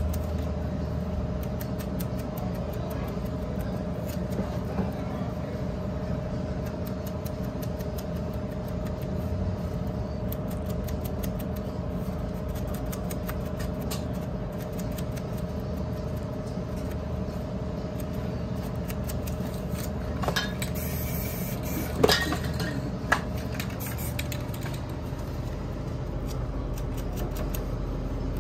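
A steady low motor hum runs throughout, with faint light scraping and ticking. A few sharp clicks and knocks come about three-quarters of the way through, the loudest a single sharp knock.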